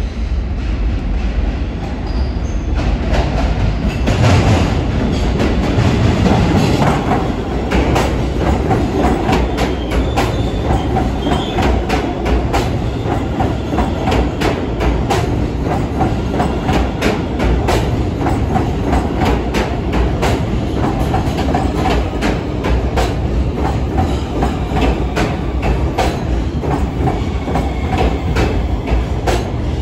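Subway train running on the tracks: a loud rumble with a continual run of sharp clicks as the wheels pass over rail joints, loudest a few seconds in.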